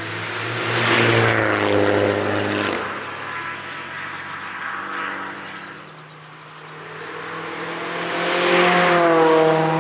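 Two cars driving past on a race track one after the other: a MINI goes by about a second in, its engine note falling in pitch as it passes. Near the end a Renault Clio approaches and passes, loudest near the end, its engine note also dropping as it goes by.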